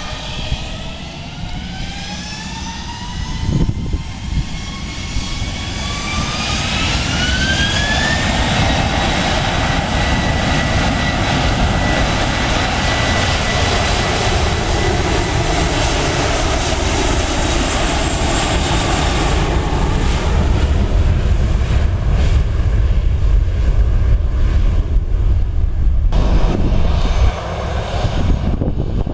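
Jet airliner engines spooling up to high thrust: a whine rises in pitch over the first several seconds and then holds steady, while a low rumble builds and stays loud. The sound changes abruptly near the end.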